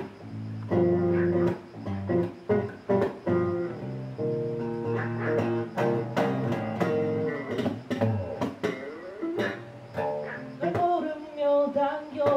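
Solo electric bass guitar being played, plucked notes with many sharp clicks among them and a few sliding notes about two-thirds of the way through.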